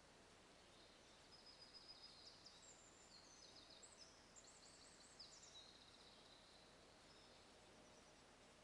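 Faint songbird singing: a run of quick, high chirping phrases for several seconds, over a steady faint hiss.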